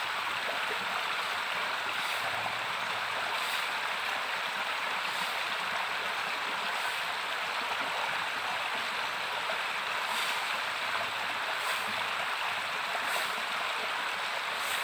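Small rocky woodland stream running full over stones: a steady, unbroken rush of water.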